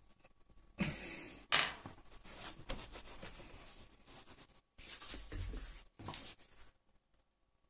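A sharp metallic clink about a second and a half in, amid scraping and handling noises from a screwdriver and a hand working on an outboard motor's lower unit. The noises stop about two-thirds of the way through.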